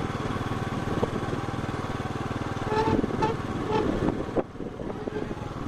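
Motorcycle engine running steadily, with a few short pitched toots about three seconds in; the engine sound drops away sharply a little over four seconds in.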